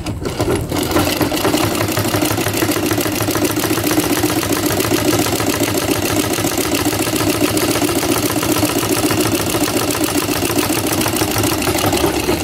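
Yamato straight-stitch sewing machine sewing at a steady fast pace, its needle and hook mechanism clattering evenly. The machine is test-stitching stretch fabric after its hook timing was reset, laying a line of stitches without skips.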